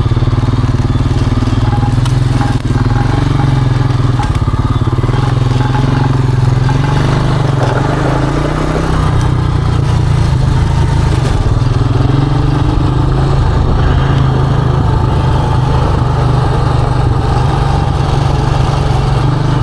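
ATV engine running steadily while riding, easing off briefly a little over eight seconds in and then picking back up.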